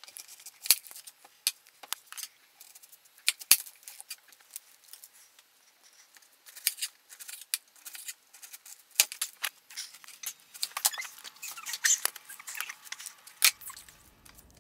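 Kitchen knife cutting a peeled white onion on a cutting board: irregular crisp cuts and taps of the blade on the board, coming more often in the second half.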